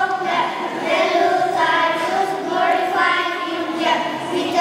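A group of young children reciting a poem together into a microphone, voices in unison with drawn-out, sing-song syllables.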